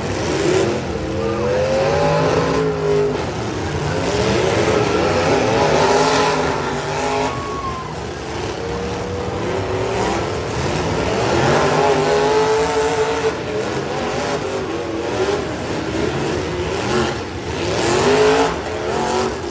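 Several demolition-derby V8 engines revving hard, their pitch rising and falling over and over as the cars shove and ram each other, with now and then a sharper crash of metal.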